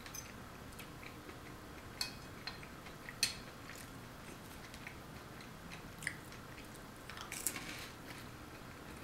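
A person eating olives close to the microphone: quiet chewing and mouth sounds, with a few sharp clicks of a fork against a ceramic plate, the loudest about three seconds in and a small cluster near the end.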